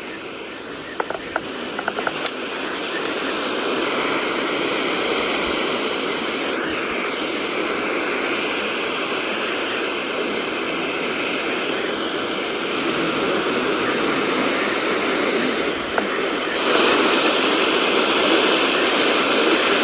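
Radio static: steady hiss from a software-defined radio receiver tuned to a weather-radio frequency with no clear signal. A few clicks come in the first couple of seconds, and the hiss gets a little louder about 17 seconds in.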